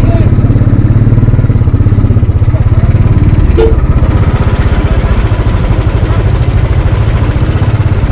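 Motorcycle engine running steadily, with a short click about three and a half seconds in.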